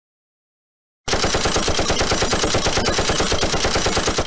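Machine-gun fire sound effect: a rapid, evenly spaced burst of shots that starts about a second in and cuts off abruptly.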